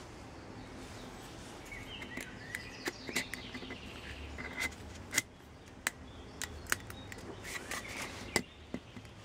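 Hands handling small metal moulds and hard cast pieces: a scatter of sharp clicks and knocks with some scraping, the loudest about five seconds in and again near the end.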